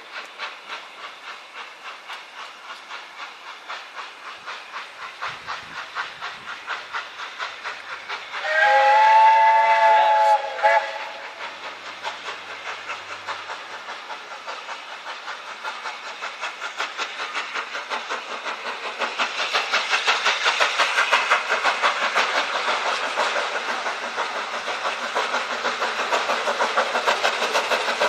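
Three-cylinder BR Standard 7P steam locomotive 71000 'Duke of Gloucester' working a train, its exhaust beats chuffing steadily. About 8.5 s in it sounds one blast of its chime whistle, about two seconds long. From about 19 s the exhaust grows louder as the engine accelerates away.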